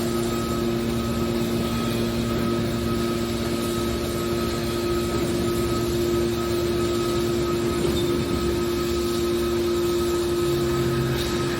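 Small aluminium can baler running with a steady mechanical hum.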